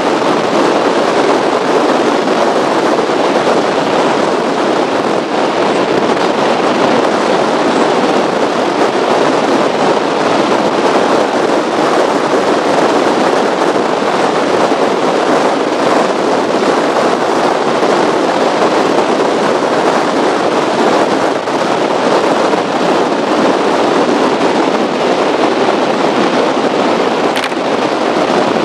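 Speedboat running fast on open water: a loud, steady rush of wind buffeting the microphone, mixed with engine and water-spray noise.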